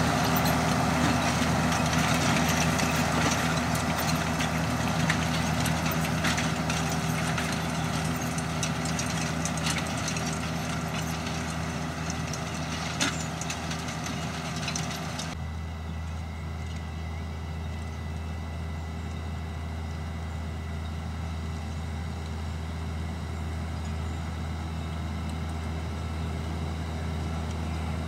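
Fendt Vario 820 tractor's diesel engine running steadily under load as it pulls a maize drill, over a busy clatter of small ticks and knocks. About halfway the sound changes abruptly to a duller, steadier engine hum as the clatter drops away.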